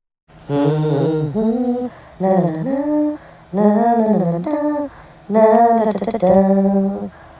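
A voice humming or singing a slow wordless melody in four phrases, each a second or so long, with short breaks between them.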